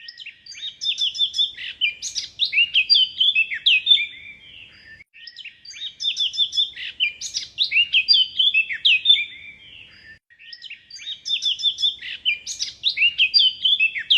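Songbird singing a fast twittering song of quick falling chirps, the same phrase three times with short pauses between.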